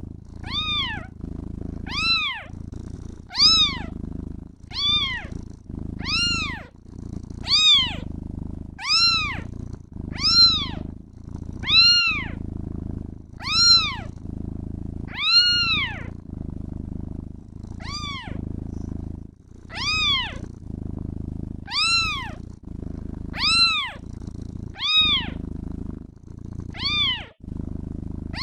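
Kitten meowing over and over, about one meow every second and a half, each meow rising and then falling in pitch. Beneath the meows runs a steady purr.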